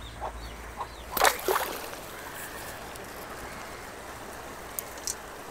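River water flowing steadily, a continuous even rush of noise. A few short, louder sounds break in about a second in, and two faint clicks come near the end.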